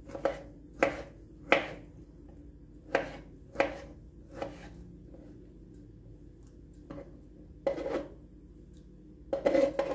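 Kitchen knife cutting tomatoes on a wooden cutting board, the blade knocking against the board. The knocks come unevenly, several in the first half, a few spaced out after, and a quick cluster near the end.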